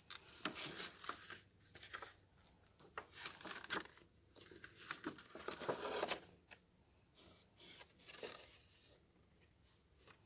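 Card-stock paper rustling and crinkling as a pop-up card is opened and folded shut by hand, the cut paper ship and waves flexing as they rise and fold flat. The sound comes as irregular soft rustles and small clicks, fading toward the end.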